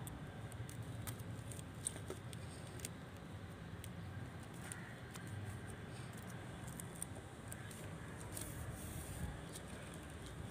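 Faint, scattered crisp ticks and rustles of dried cardamom pods and thread being handled as the two ends of a strung cardamom garland are joined, over a low steady hum.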